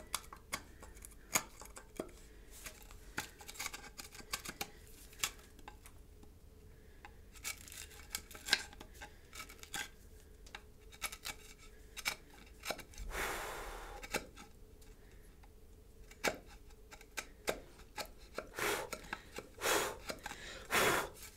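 Hand chisel paring wood: a run of small, sharp slicing clicks as thin shavings come off, with a longer scraping stroke about 13 seconds in and a few more strokes near the end.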